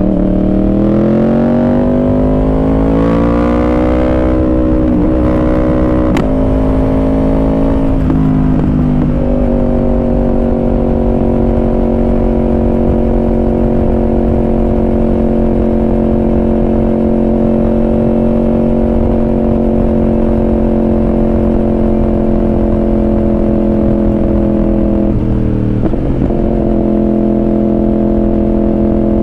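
Yamaha R1 inline-four sport bike engine heard onboard while riding: the revs climb over the first few seconds and break at a couple of gear changes, then the engine holds a steady pitch at a constant cruising speed, with a short dip in revs about 25 seconds in.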